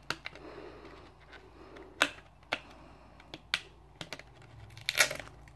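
Small clear plastic packaging sleeve crinkling and crackling in the hands as it is pulled open to free a microSD card. It gives a run of scattered sharp clicks, with a longer crinkle near the end.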